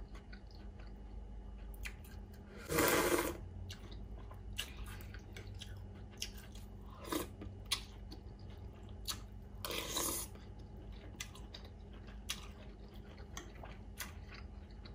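Someone eating pho: wet chewing with small clicks of the spoon on the bowl, and two loud half-second slurps of noodles, about three seconds in and again about ten seconds in.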